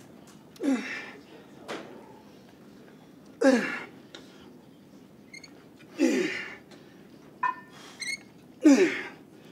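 A weightlifter's strained grunts on exhaling, one with each rep of spider curls with an EZ curl bar. There are four of them, about every two and a half seconds, each falling in pitch. He is trying to keep his grunting down because of fresh stitches in his throat after surgery.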